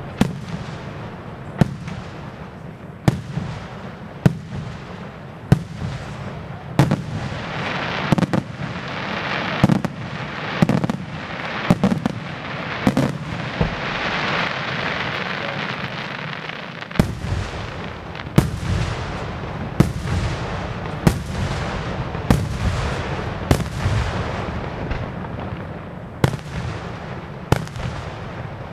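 Aerial firework shells bursting one after another, with a sharp bang about every second. In the middle there is a stretch of dense crackling and hiss from the bursting stars, and a low rumble fills in underneath toward the end.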